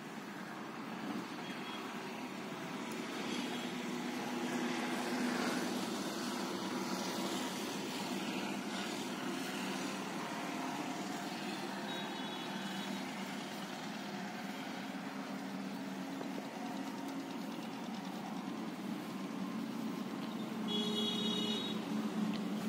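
A motor vehicle engine runs steadily, swelling a few seconds in, with a short higher-pitched beep or horn tone near the end.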